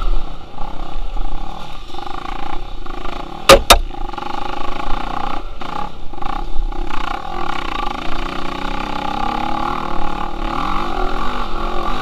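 Dirt bike engine running hard and revving up and down as the bike is ridden over a sandy motocross track. Two sharp knocks in quick succession come about three and a half seconds in.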